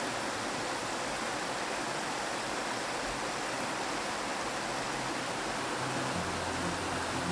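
Steady rushing of a mountain trout stream running over rocks and riffles. Low background music comes in near the end.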